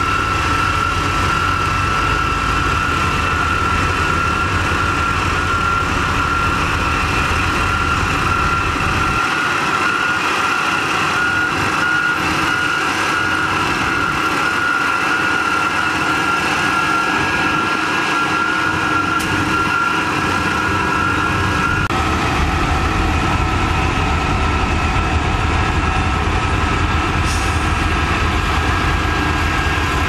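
Engine of a road construction machine running steadily, with a high steady whine over a low rumble. The rumble drops away about nine seconds in and comes back about twenty-two seconds in.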